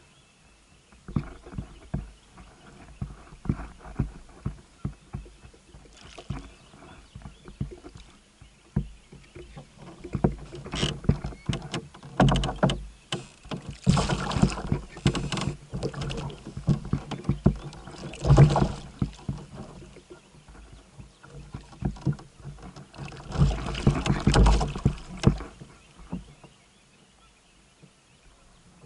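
A hooked fish splashing and thrashing in the water at the side of the kayak as it is brought in, with many sharp knocks on the hull. The splashing comes in two louder spells, the second a few seconds before the end.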